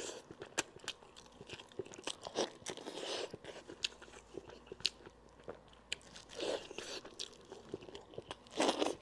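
Close-miked eating of braised monkfish by hand: chewing and biting with many small wet mouth clicks, and a few louder bursts of noise at the mouth.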